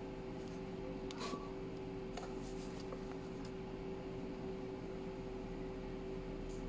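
Quiet room tone: a steady low hum with a faint constant tone, broken by a few soft rustles and clicks about a second in and again around two seconds in.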